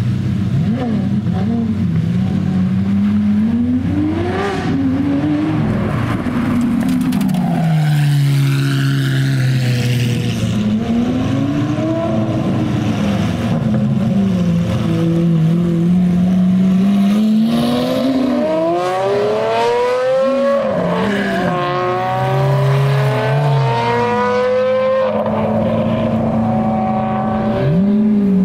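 Lamborghini Aventador 6.5-litre V12 engines revving and accelerating one after another as the cars pull away, the engine note climbing and dropping back several times. The longest, loudest climb comes about two-thirds through, breaks off with a sudden drop, climbs again and falls to a steadier low engine note near the end.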